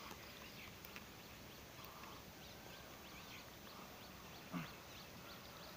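Faint outdoor field ambience: a steady low hiss with scattered faint, short high chirps, and one brief voice-like sound a little past the middle.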